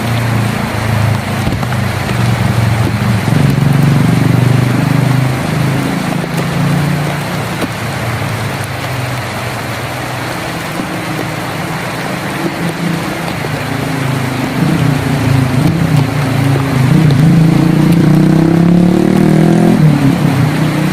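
A motor vehicle's engine running close by over steady rain, growing louder and rising in pitch during the last few seconds.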